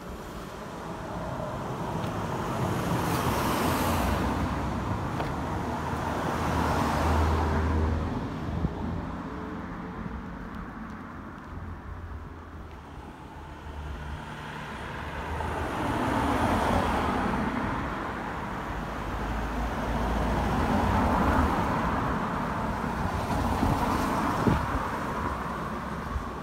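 About five cars passing one after another on a road, each a swell of engine and tyre noise that rises and fades away.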